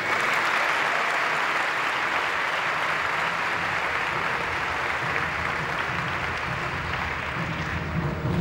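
Large audience applauding steadily for about eight seconds, with no rhythm.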